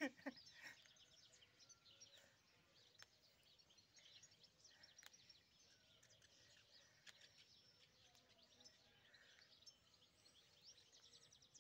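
Near silence outdoors, with small birds chirping and singing faintly in the background. A brief voice sound at the very start.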